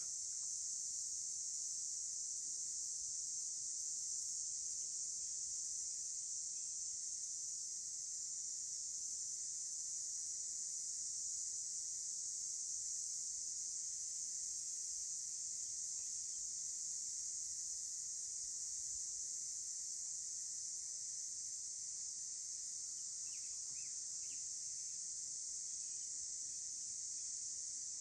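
Steady, high-pitched, unbroken chorus of insects, with a few faint bird chirps near the end.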